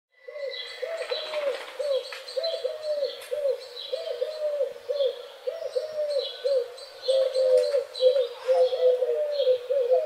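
Morning birdsong: one bird repeats low, arched notes about three a second, while other birds give short high calls above it.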